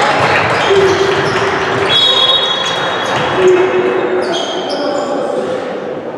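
Sounds of a football game on a hard court: the ball bouncing, short high squeaks and players' voices.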